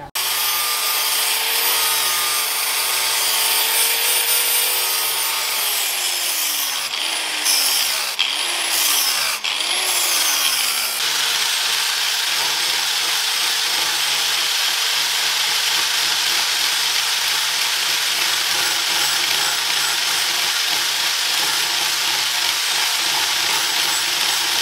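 Small electric angle grinder with an abrasive disc grinding on a knife at the metal collar of its wooden handle. In the first half its pitch drops and recovers several times as the disc is pressed in, then it runs steadily.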